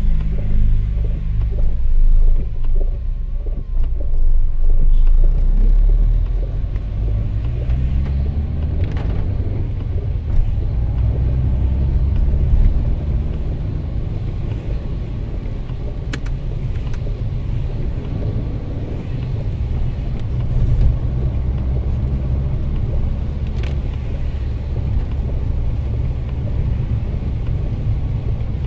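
Car running, heard from inside the cabin: a steady low engine and road rumble that rises in pitch as the car pulls away from a stop, then carries on at driving speed with tyre noise on the wet road.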